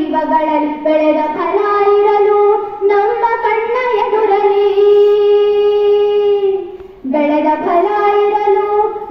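A group of schoolgirls singing together, holding one long note in the middle of the phrase, with a brief breath-pause near the end before they carry on.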